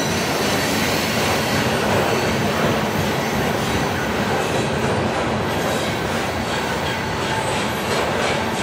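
Loaded centerbeam lumber flatcars of a freight train rolling past: steady rumble and rattle of steel wheels on the rails, with a thin high wheel squeal that fades after a couple of seconds.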